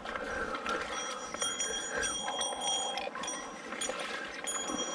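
Hardy click-and-pawl fly reel ratcheting in two bursts while a hooked white-spotted char is played, over the steady rush of river water.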